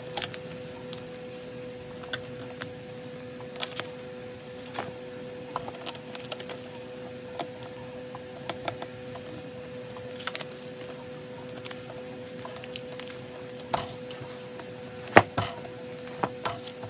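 Clear plastic binder sleeves rustling and crinkling as photocards are handled and slid into their pockets, with scattered sharp clicks and taps, the loudest a pair near the end. A steady faint hum runs underneath.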